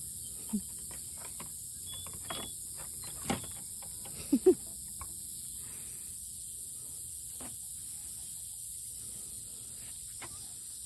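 Steady high chorus of evening insects, with a few short calls from the poultry at the coop over it. The loudest are two quick sharp calls about four and a half seconds in.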